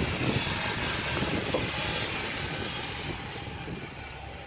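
Kubota DC95M combine harvester running as it cuts rice, a steady diesel engine and machinery drone that grows fainter toward the end.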